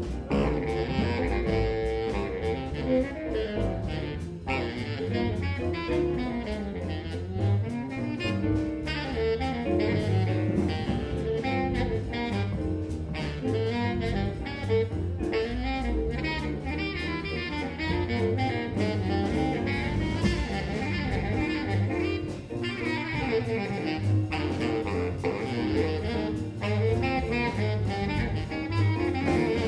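Jazz music with a saxophone lead over a steady beat.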